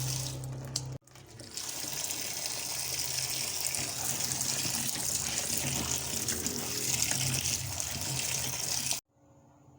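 Water running steadily while peeled bananas, pumpkin, arrowroot and potatoes are washed by hand. It cuts off suddenly near the end.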